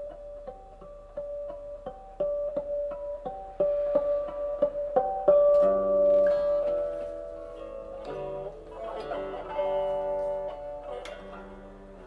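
Guitar playing an instrumental passage of a song: a run of single picked notes, then fuller ringing chords from about halfway.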